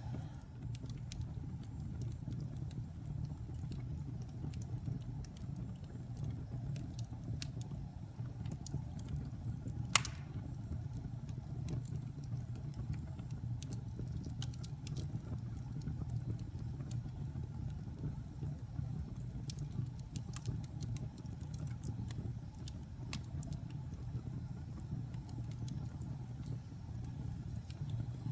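Wood fire crackling: a steady low rumble of flames with scattered sharp crackles and pops, and one loud pop about ten seconds in.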